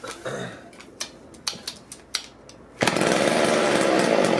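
Sachs Dolmar 105 two-stroke chainsaw being pull-started with the choke on and the throttle at half: a few clicks and rattles from the starter, then about three seconds in the engine catches and runs steadily and loudly.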